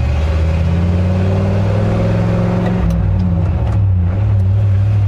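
The 1967 Ford F-250 truck's engine runs, heard from inside the cab as a steady low drone. Its note shifts about three seconds in.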